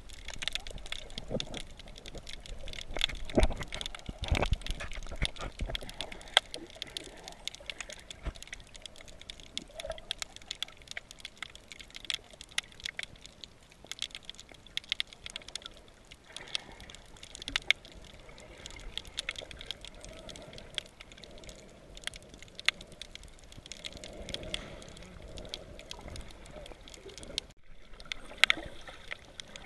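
Underwater sound picked up by a submerged camera: a steady hiss of water filled with sharp crackling clicks, with a few heavier low thumps a few seconds in.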